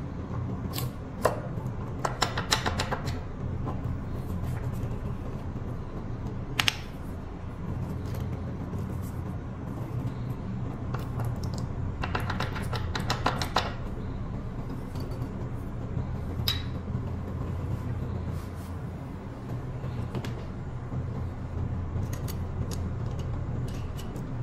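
Metal clicking and rattling as the electric scooter's front coil-spring shock absorber and its nut and washers are handled by hand, coming in scattered bursts of quick clicks over a steady low hum.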